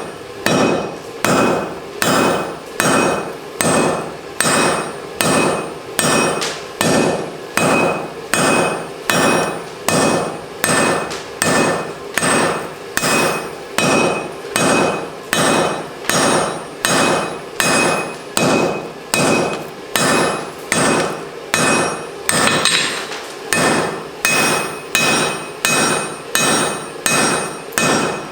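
Hand hammer striking hot mild steel on an anvil in a steady rhythm of a little over one blow a second, each blow ringing: drawing out the rein of a pair of blacksmith's tongs.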